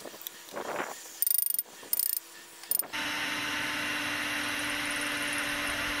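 A few short bursts of rapid ratchet-like clicking. From about halfway, a cordless drill runs steadily, driving screws into timber.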